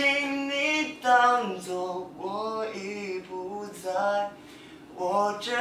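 A young man singing a Mandarin pop song unaccompanied, holding long notes. There are short breath pauses about two seconds in and again near the end.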